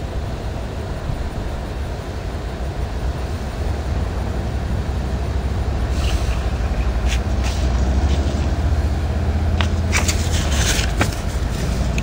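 Low, fluttering rumble of wind buffeting the microphone, swelling in the middle and easing near the end, with the crinkle and rustle of a paper leaflet being handled from about six seconds in.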